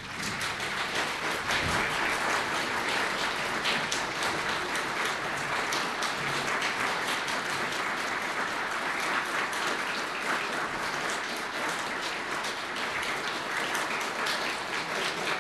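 Audience applauding: a dense, even patter of many hands clapping that swells right at the start and holds steady.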